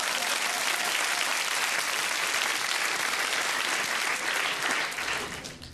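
Live audience applauding, a dense steady clapping that fades out near the end.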